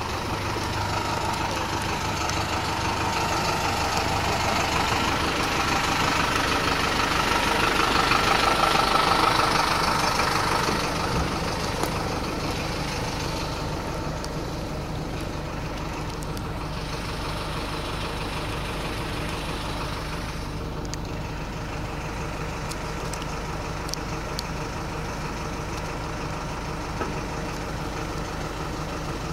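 Bus engine running with a steady low drone. It grows louder for several seconds about a third of the way in, then settles back to a steady level.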